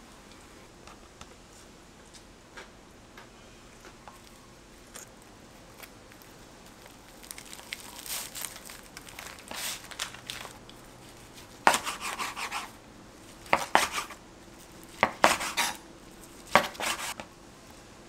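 Kitchen knife slicing a kimbap roll on a cutting board: four crackly cuts through the dried seaweed wrap in the second half, the loudest sounds here. Before them come softer rustling and light taps as the roll is handled and pressed into shape.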